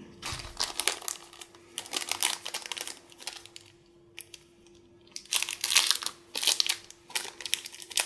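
A plastic Ziploc bag crinkling as gloved hands handle and open it. The crinkling comes in bursts, with a quieter lull in the middle.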